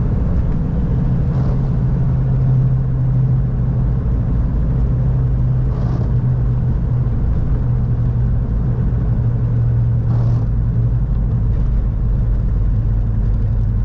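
Inside the cabin of a 1997 Toyota Hilux: its 3.0-litre 5L four-cylinder diesel drones steadily at road speed, with tyre and road noise on a wet road. A faint swish recurs about every four seconds.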